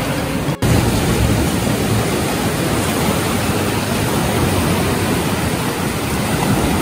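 Steady rush of small waves breaking and washing up a sandy shore, with a split-second dropout about half a second in.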